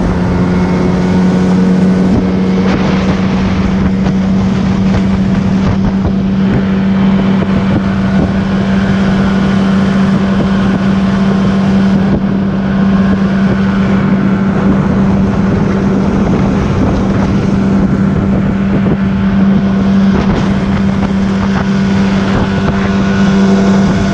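Boat motor running steadily at a constant speed, with a strong even drone and wind rushing on the microphone.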